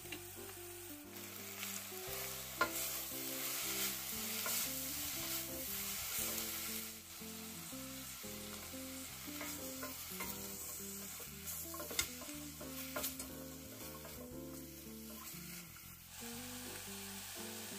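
Rehydrated dried pollack strips and radish sizzling as they are stir-fried in sesame oil in a stainless steel pot, with stirring and a few sharp knocks against the pot.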